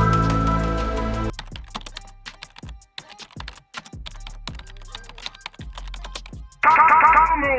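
Rapid irregular clicks of typing on a computer keyboard, for about five seconds after a held music chord cuts off about a second in. Near the end, a loud burst of quick, repeated warbling tones.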